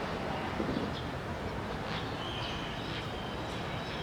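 Outdoor ambience: a steady hum of traffic with a bird chirping several times, short high calls and one briefly held note just after the middle.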